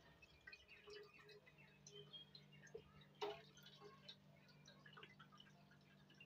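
Very faint pouring of thick blended mint and lemon juice through a mesh strainer into a steel pot, with scattered soft ticks and one slightly louder click about three seconds in, over a low steady hum.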